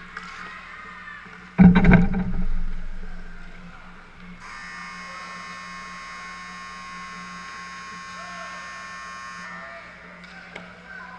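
A loud bang close by about one and a half seconds in, ringing away over a second, then the rink's scoreboard buzzer sounding one steady buzz for about five seconds.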